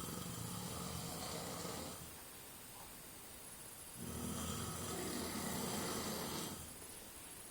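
A man snoring heavily in his sleep: one long, low snore ends about two seconds in, and after a pause a second snore of about two and a half seconds follows.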